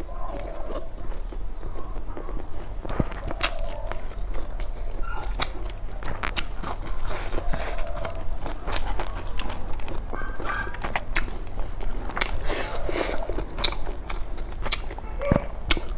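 Close-miked eating sounds: a person biting and chewing food, with irregular wet smacks and clicks of the mouth.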